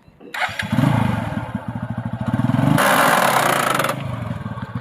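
TVS Apache 180's single-cylinder engine running in gear with a regular pulse, joined about three seconds in by a loud, harsh 'kar kar' rasp for about a second. The rasp comes from a front (gearbox) sprocket whose teeth are worn almost flat, letting the chain slip.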